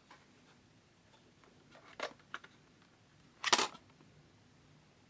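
Handling noises of plastic drone parts being taken from their case: a couple of light clicks about two seconds in and a louder clatter about three and a half seconds in.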